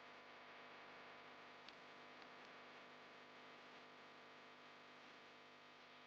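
Near silence: a faint, steady hiss and hum of room tone, with one faint tick nearly two seconds in.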